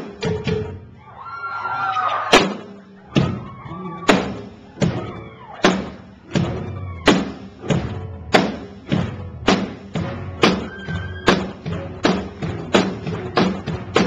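Live drum kit playing a steady beat of heavy kick and snare hits during a band sound check, spaced out at first and quickening to about two hits a second.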